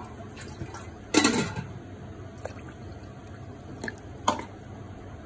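Water poured into a glass bowl of raw short-grain rice to rinse it: a loud splash a little over a second in, then a few lighter splashes and drips near the end.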